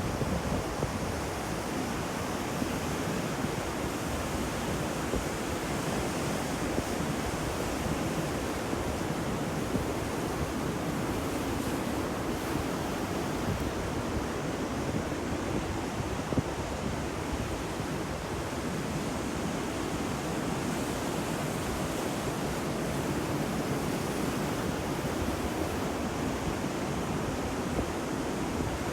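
Ocean surf: waves washing continuously onto a shore, a steady, even rush of water.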